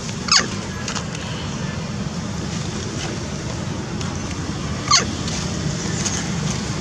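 Outdoor ambience with a steady low rumble, broken twice by a short, sharp, high squeak that falls quickly in pitch, about four and a half seconds apart.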